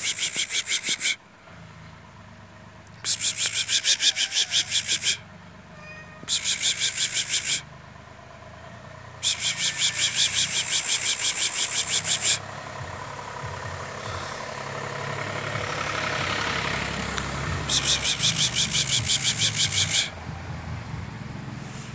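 A rapid, high-pitched pulsing trill in five bursts of one to three seconds each, about eight pulses a second, over a steady low traffic hum that swells and fades once in the middle.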